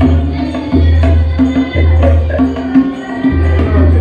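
Tabla played by hand in a steady rhythm: ringing strokes on the small right-hand drum over deep, long-held booms from the bass drum, re-struck about every second.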